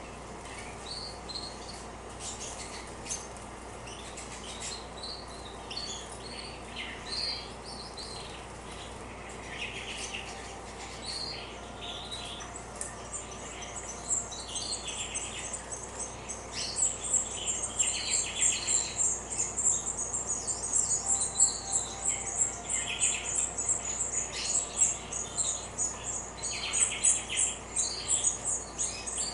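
Canaries chirping, with short fluttering splashes as they bathe, and a rapid, high-pitched trill that starts about halfway and grows louder.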